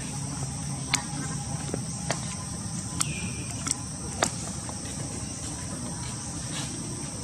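Steady high-pitched drone of forest insects, with a few sharp clicks scattered through it.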